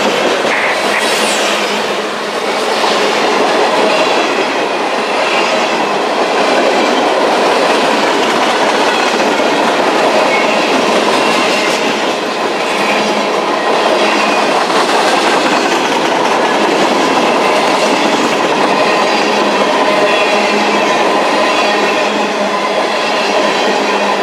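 Freight train cars rolling past at close range: a steady loud rumble and clatter of steel wheels on the rails that continues without a break.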